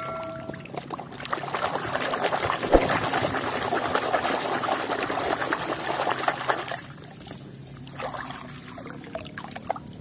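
Water splashing and sloshing in a plastic basin as a hand scrubs a muddy toy vehicle underwater, busiest from about a second in to about seven seconds, then quieter.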